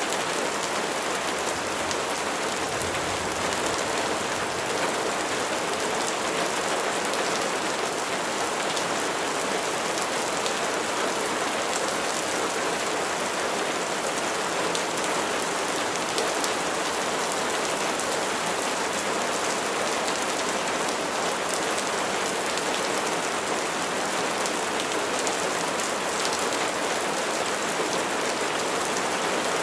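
Steady rain falling and pattering on surfaces, a constant hiss with fine scattered drop ticks.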